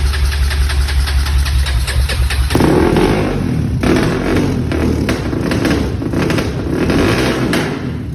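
2001 Honda TRX400 quad's single-cylinder four-stroke engine running just after starting: it idles steadily for about two and a half seconds, then is revved up and down several times. The engine is running with valve clearances found to be far too tight and an aftermarket Chinese carburetor fitted.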